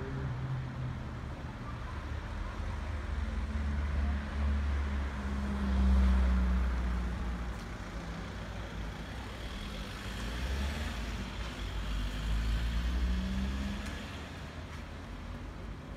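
Road traffic: motor vehicles driving past on a street, the engine rumble swelling as each passes, loudest about six seconds in and again around thirteen seconds.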